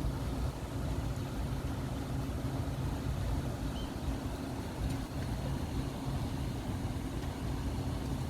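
A vehicle's engine running steadily, a constant low hum over rumbling noise.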